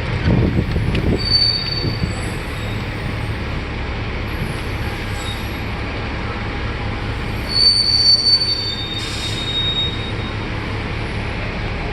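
Steady bus and traffic noise with high brake squeals, one about a second in and a louder stretch from about eight to ten seconds.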